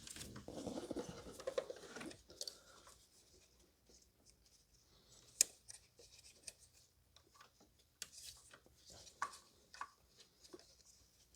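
Quiet handling of engine parts by hand: a scraping rustle for about the first two seconds, then scattered light clicks and taps, with one sharper click about five seconds in.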